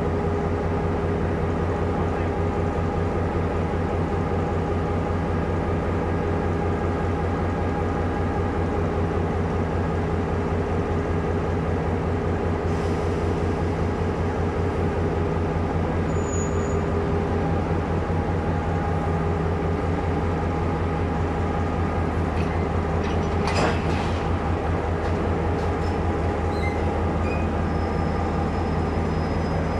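Diesel locomotive engine running steadily, a deep even hum with a fast pulse, heard close from the cab. One sharp knock about three-quarters of the way through.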